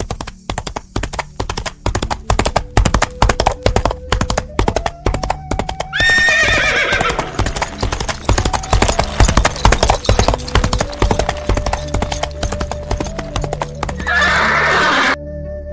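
Horse hoofbeats in a fast, even rhythm, with a horse whinnying about six seconds in and again near the end, over held musical notes. The hoofbeats and whinny cut off shortly before the end.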